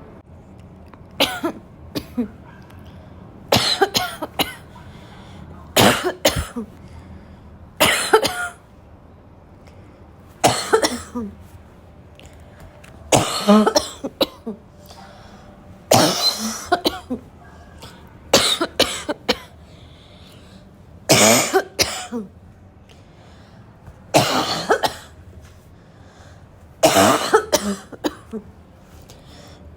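A person's harsh, intense barking cough, coming in repeated bouts of one to three coughs about every two to three seconds.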